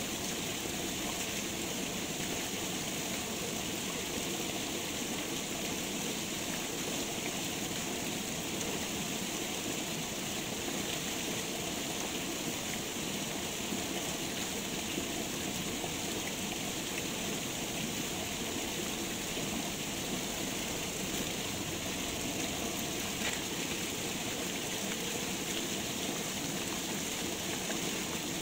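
Steady, even water noise with no breaks or changes.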